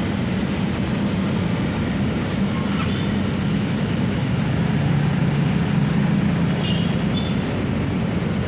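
Steady low rumble of road traffic, with a low engine hum.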